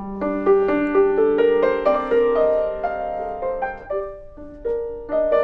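Piano starting suddenly and playing a melody of single notes over a held low note, with a brief pause about four seconds in before the playing resumes.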